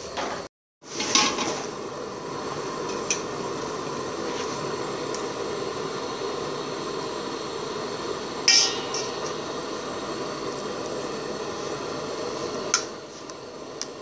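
Kitchen cookware and utensils clinking a few times over a steady hiss, with one sharp clink about eight and a half seconds in. The sound cuts out briefly just after the start.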